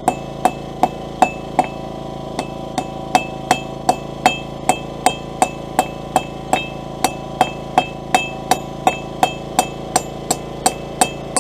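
Blacksmith's hand hammer striking hot steel bar stock on an anvil in a steady rhythm, about two and a half blows a second, each with a short ringing note. The smith is knocking the corners off the square-tapered tip to make it octagonal on the way to round.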